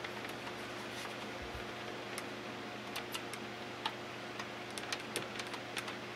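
Light, irregular clicks and taps of hands handling the plastic case of an Actiontec GT701 DSL modem and fitting its power plug, over a low steady hum.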